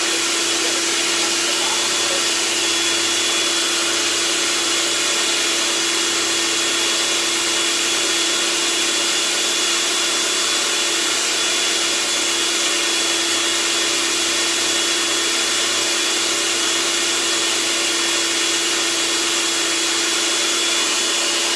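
Electric food processor running loud and steady, its blade grinding a falafel mix of chickpeas, parsley, cilantro and onion; a constant motor hum with a steady tone over it.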